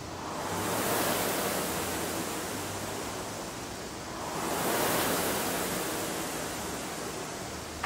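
Concept2 indoor rower's air-resistance flywheel whooshing. It swells with each of two drive strokes, about four seconds apart, and dies away on the slow recovery between them.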